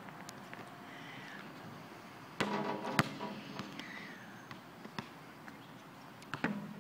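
A basketball bouncing on a hard outdoor court: a few separate sharp thuds, the loudest about three seconds in.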